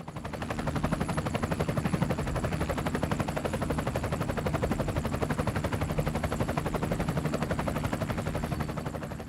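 Sound effect of a drone's spinning propellers: a fast, steady chopping buzz over a low hum. It swells in over the first second and begins to fade near the end.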